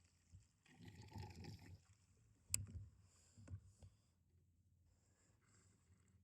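Faint handling noises: a short scraping rustle about a second in, then a sharp click and a softer knock a second later, with near silence after.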